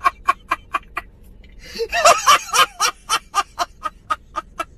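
A man laughing hard in rapid repeated 'ha' bursts, about four or five a second, with a louder stretch of laughter about two seconds in.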